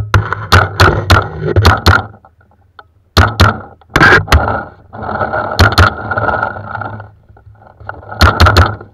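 Paintball markers firing, sharp pops in irregular quick clusters over a rough steady rushing noise.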